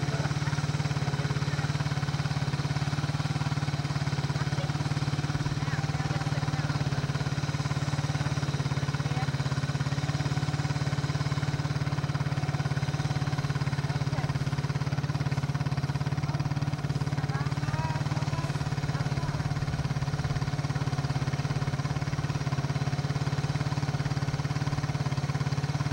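Four-wheeler ATV engine idling steadily, a constant low hum.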